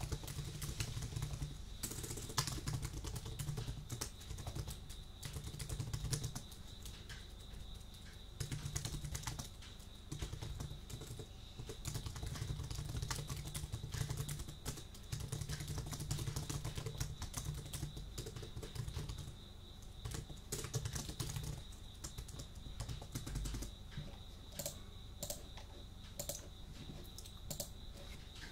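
Computer keyboard being typed on in quick runs of keystrokes with short pauses; over the last few seconds the clicks thin out to scattered single taps. A faint steady high tone sits under the typing.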